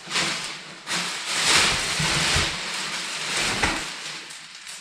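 Packaging rustling and crinkling as it is handled and opened, in uneven surges, loudest about halfway through.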